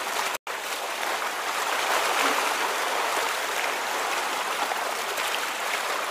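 Water flowing and rushing steadily, like a stream, with a split-second cut to silence about half a second in.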